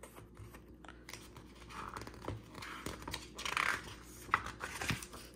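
Hands handling the paper pages of a hardback picture book: soft rustling and scraping of paper, with a few faint light clicks.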